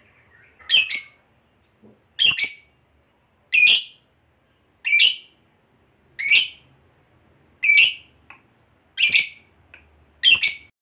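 Fischer's lovebird giving loud, sharp, high-pitched calls: eight in an even series, about one and a half seconds apart.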